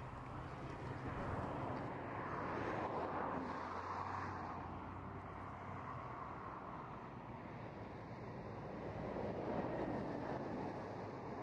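Two NSW 38-class Pacific steam locomotives, 3801 and 3830, working a train upgrade in the distance. Their exhaust comes through as a steady rushing noise with no distinct beats, growing a little louder near the end as they come closer.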